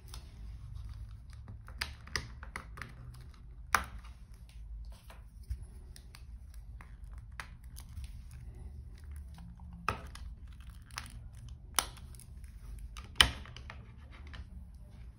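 Hands handling a plastic eyeglass frame: scattered small clicks and rustles of fingers and plastic, a few sharper clicks standing out, the loudest near the end, over a low steady hum.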